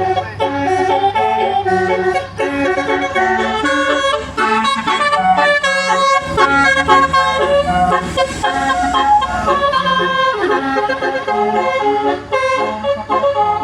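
A bus's Basuri 'telolet' multi-tone horn playing a melody, its notes stepping quickly from one to the next, with a steady low hum underneath.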